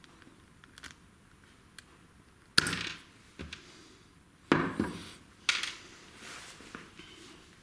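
Pliers and a small metal cord crimp knocking on a wooden workbench as the crimp is worked off a starter pull cord. There are three sharp clacks, each with a brief ring; the first, about two and a half seconds in, is the loudest, and the others come about two and three seconds later.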